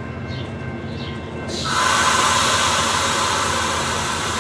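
A loud hiss of compressed air from the standing Amtrak Superliner train, starting abruptly about a second and a half in and then continuing steadily.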